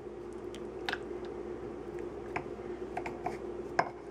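A silicone spatula stirs a thick mayonnaise and sour cream sauce in a small bowl, with scattered soft clicks and taps of the spatula against the bowl. A steady low hum runs underneath.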